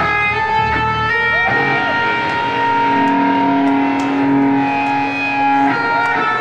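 A live hardcore punk band's electric guitars letting sustained notes and chords ring out, changing to new notes about a second and a half in and again near the end.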